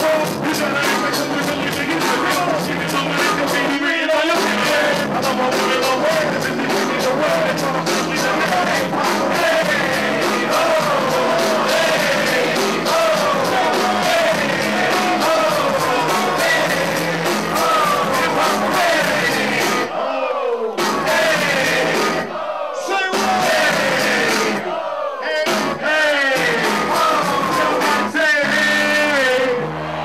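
Live hip hop performance over a loud PA: a pounding beat with rapped and chanted vocals on microphones and crowd shouting. In the last third the beat cuts out briefly about three times while the vocals carry on.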